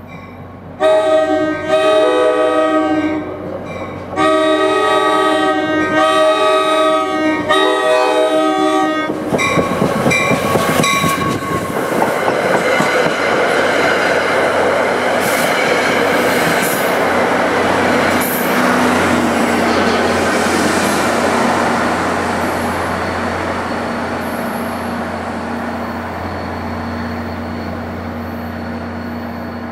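NJ Transit push-pull commuter train sounding its multi-note air horn in several blasts for the grade crossing, then running past with its wheels clattering on the rails. The noise fades slowly as the train recedes.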